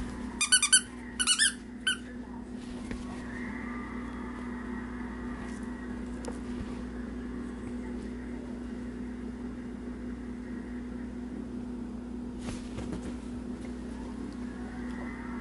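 Squeaker in a plush pet toy squeezed in a quick run of about seven high-pitched squeaks within the first two seconds. A steady low hum runs underneath.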